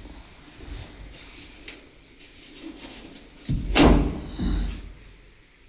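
Plastic back cover of a washing machine being pulled free of its clip-in arms, with handling rustle and then two loud plastic knocks about three and a half seconds in.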